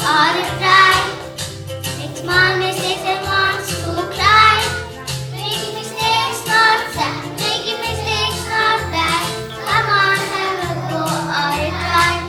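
Children singing a song over a musical accompaniment with a repeating bass line.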